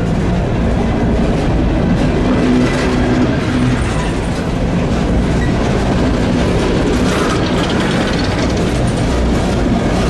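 Empty CSX steel coal cars rolling past close by: a steady, loud rumble of wheels on rail with clickety-clack over the rail joints.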